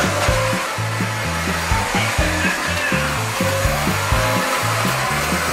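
Small electric motor and gears of a remote-control Lightning McQueen toy car whirring steadily as it drives, over background music with a steady beat.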